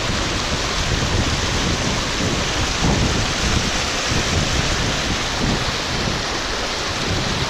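Rushing mountain stream water, a steady dense noise, with an unsteady low rumble underneath.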